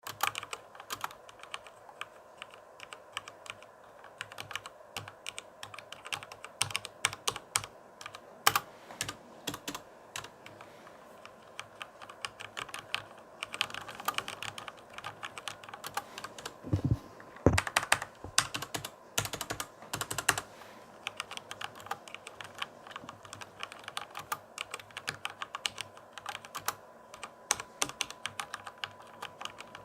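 Typing on a computer keyboard: an uneven, continuous patter of key clicks, with a louder run of heavier, deeper key strikes about halfway through.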